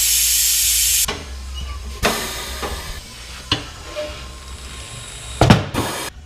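Compressed air hissing steadily, then cutting off sharply about a second in, followed by a few scattered knocks and clanks of tyre-shop work, the loudest near the end.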